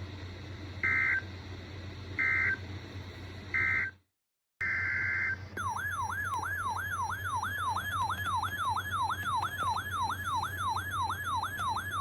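Emergency Alert System data tones: three short buzzy digital bursts about a second and a half apart, the end-of-message signal. After a brief cut to silence come one longer data burst and a siren-like attention tone that sweeps up and down about three times a second.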